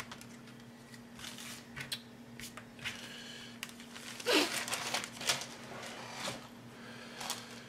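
Thin clear plastic bag crinkling and rustling in irregular bursts as a plastic model-kit sprue is handled inside it.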